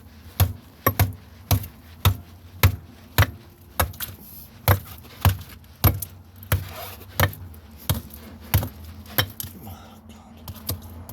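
Repeated hard blows, about one every 0.6 s, striking a DJI FPV drone's 4S lithium-polymer battery in an attempt to puncture it.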